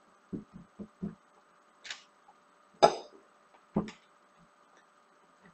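Knocks and clicks of a 3D printed plastic mold being handled and pried apart: four soft taps in the first second, then three sharper clicks about a second apart.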